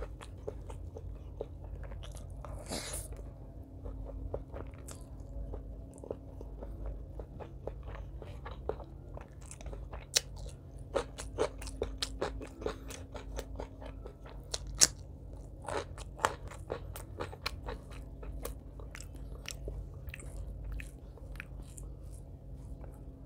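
A person chewing and biting a mouthful of curry and rice close to the microphone, with wet mouth clicks and small crunches coming at irregular intervals. The loudest click is about 15 seconds in. A faint steady low hum runs underneath.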